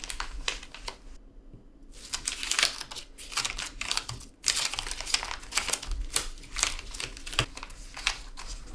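Paper being crumpled and worked over in a man's hands: a continual run of irregular crackles and crinkles, pausing briefly about a second in. It is restless fidgeting, repetitive enough to grate on the listener.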